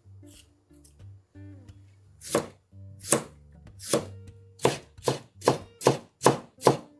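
Chef's knife slicing a cucumber on a plastic cutting board: about nine cuts starting about two seconds in, slow at first and then quicker, each a sharp knock of the blade on the board. Soft acoustic guitar music plays underneath.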